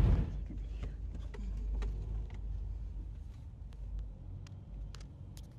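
Car running, heard from inside the cabin as a quiet, steady low rumble, with a few faint scattered clicks.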